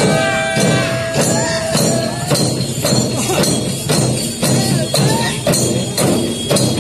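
Dollu Kunitha troupe beating large barrel drums (dollu) in an even, driving rhythm, about three beats a second, with metallic jingling over the drums. A couple of held high tones ring over the first two seconds.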